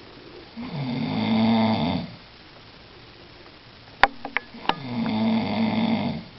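A man snoring in his sleep: two long snores, each about a second and a half, with a few sharp clicks just before the second.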